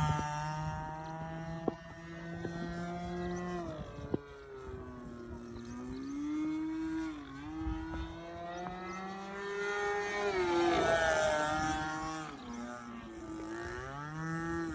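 20cc two-stroke gas engine of an RC model plane in flight, its buzzing note gliding up and down in pitch as the plane climbs away and circles. It is loudest at the start, fades, and swells again about ten seconds in. Two sharp clicks come in the first few seconds.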